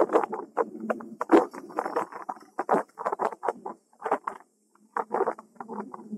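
Irregular crackling and rustling bursts of ride noise on an action camera's microphone, a mix of wind and bicycle rattle broken into short choppy fragments with brief drop-outs between them.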